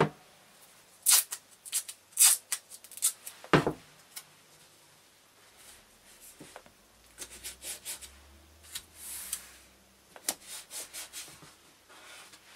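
Masking tape pulled off the roll in several short, sharp rips in the first few seconds. Then fingers rub and press the tape and a sheet of paper down onto plywood in a run of quick scratchy strokes.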